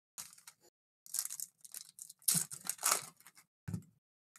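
Foil trading-card pack wrappers being torn open and crinkled by hand, in several short rustling bursts.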